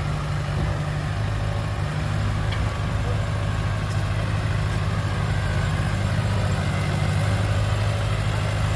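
Heavy diesel engine of a dump truck or bulldozer running steadily with a low, even hum.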